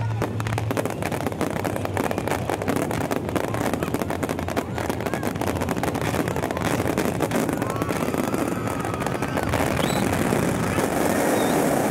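Fireworks going off in a rapid, dense crackle of many small reports, easing off near the end.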